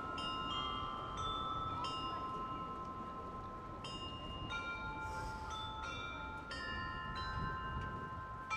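Tuned bells or chimes playing a slow melody: struck notes ring on and overlap one another, over a steady low background noise.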